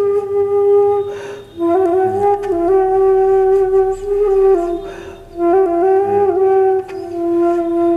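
Background music: a solo flute-like melody of long held notes with slight bends, breathy between phrases.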